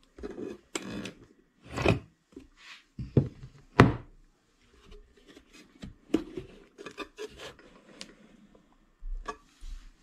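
Hands handling an antique wooden cigar box: irregular wooden knocks, taps and rubbing as the box is turned and set down, the loudest knocks about two and four seconds in, then the wooden lid sliding open.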